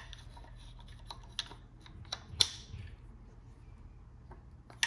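A few light metallic clicks and ticks from the VANOS unit, timing chain and sprockets being worked into place by hand on a BMW M50 cylinder head, the sharpest about halfway through and another near the end.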